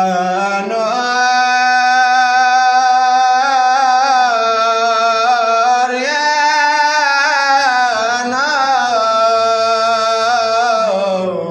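A man's solo voice chanting an Arabic supplication, drawing out "yā nūr" in long, held melodic phrases with wavering ornamental turns. A new phrase begins about six seconds in.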